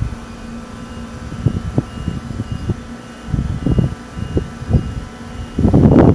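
Wind buffeting the microphone in uneven low rumbles over a steady low hum, with a heavy gust starting near the end.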